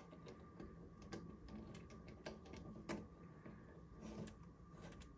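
Faint scattered clicks and ticks of a bidet water-line fitting being threaded by hand onto a toilet-supply T adaptor, the sharpest click about three seconds in.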